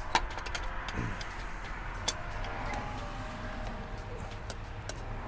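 Scattered light clicks and taps of intake parts and hose clamps being handled and fitted by hand, over a faint background hiss.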